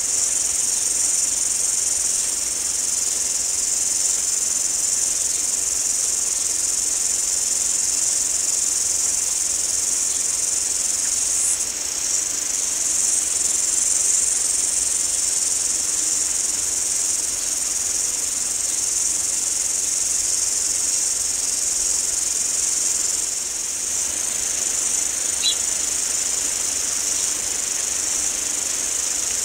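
A dense, steady chorus of insects shrilling high and continuously over a soft background hiss, with one short high chirp about 25 seconds in.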